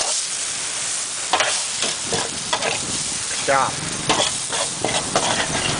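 Stir-fried noodles sizzling in a hot wok with a steady hiss, as they are stirred and scooped, with repeated sharp scrapes and clacks of a utensil against the pan.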